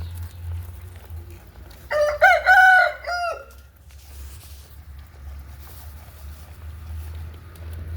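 A rooster crowing once, a multi-part cock-a-doodle-doo starting about two seconds in and lasting under two seconds, over a steady low hum.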